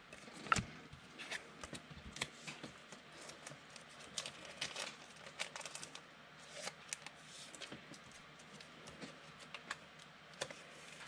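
Faint, irregular light clicks and taps of trading cards being handled and sorted.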